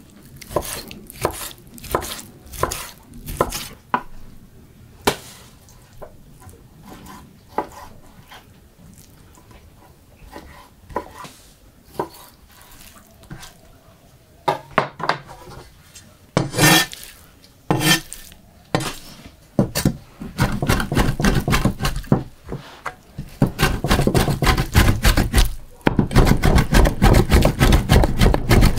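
A knife cutting raw meat on a wooden cutting board. The blade knocks on the board about once a second at first, with a few louder knocks midway. From about twenty seconds in comes rapid, steady chopping as the meat is minced fine with a large knife, broken once by a short pause near the end.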